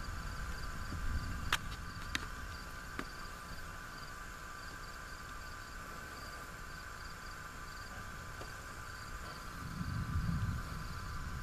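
Insects chirping in a steady, evenly pulsing chorus, over a low rumble that swells briefly near the end.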